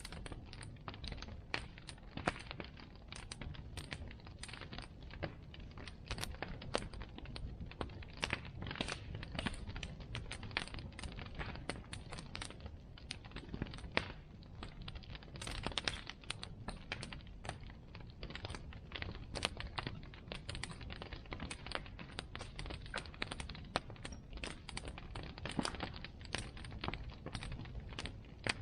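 Wood bonfire burning, crackling and popping irregularly over a low steady rumble.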